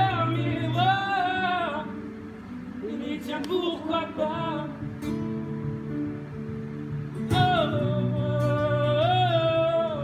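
A live song: a solo voice singing long, wavering held notes over guitar accompaniment, the voice dipping in the middle and returning strongly about seven seconds in.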